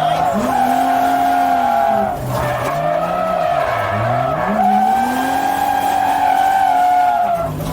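Toyota Chaser JZX100's 1JZ straight-six held at high revs while drifting, rising twice with a brief drop in between as the driver lifts and gets back on the throttle, with tyres skidding.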